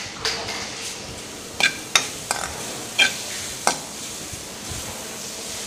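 Freshly grated coconut dry-roasting in a hot kadai with a steady sizzle as its moisture cooks off. A steel spoon stirs it and strikes the pan in several sharp, ringing clinks.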